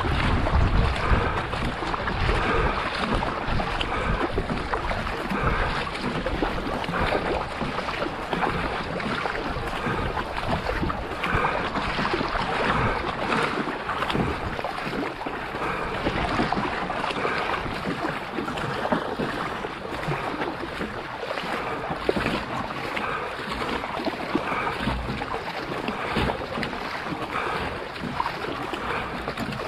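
Water splashing and rushing along the hull of a racing canoe under steady paddling, with wind buffeting the microphone.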